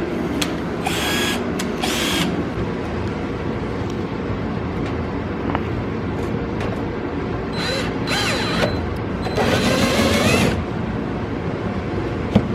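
Power drill run in several short bursts with a high motor whine: two brief bursts about a second in, then longer ones near eight and ten seconds. It is drilling holes into a Nissan 350Z's rear turn-signal housings for strobe lights.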